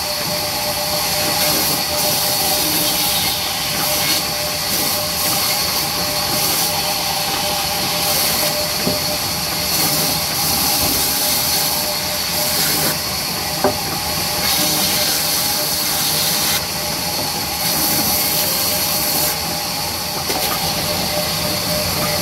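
Sawmill band saw running and ripping through a wooden plank: a steady loud whine and rasp of blade and motor, with one sharp knock about two-thirds of the way through.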